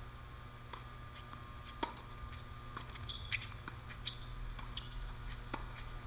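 Tennis ball struck by rackets during a doubles rally: sharp, distant pops every second or so, the loudest about two seconds in, with a few short high squeaks between them.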